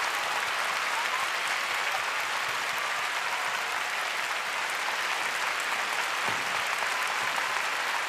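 Large arena crowd applauding steadily, a sustained ovation of many hands clapping.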